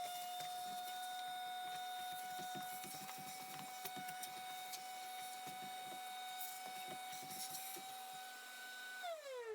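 Vacuum cleaner motor running with a steady high whine while it sucks up nest debris, with scattered clicks and rattles. It is switched off near the end, and its whine falls quickly in pitch as it spins down.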